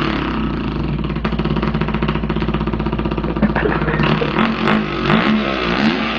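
A man imitating a dirt bike engine with his voice: a rapid buzzing putter through the middle, with the pitch sliding up and down like revving toward the end.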